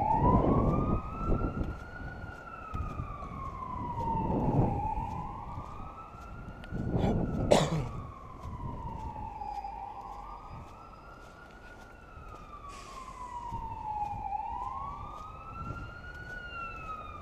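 Emergency vehicle siren wailing, its pitch rising and falling slowly, about one cycle every five seconds. There is low rumbling noise on the microphone in the first few seconds and a sharp knock about seven and a half seconds in.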